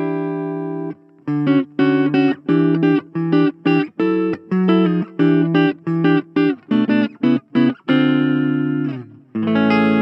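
Gibson Les Paul Standard electric guitar through a Blackstar Fly 3 mini amp's clean channel, tone control (ISF) at centre. A ringing chord stops about a second in, then a run of short, choppy chords, about two a second, and near the end chords left to ring out.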